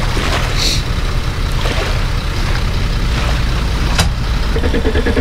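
An engine running with a steady low rumble, with a sharp knock about four seconds in.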